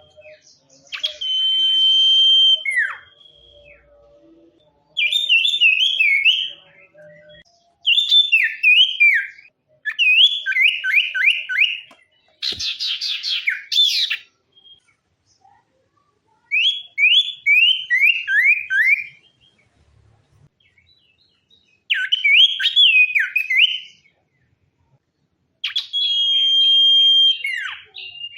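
Sirtu (common iora) singing in separate phrases with short pauses between them. The phrases are made of clear whistles and quick runs of falling notes, with long level whistles near the start and end and a buzzy rattle about halfway.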